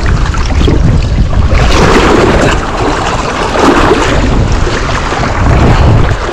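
Fast stream water rushing over rocks, with a steady wind rumble on the microphone.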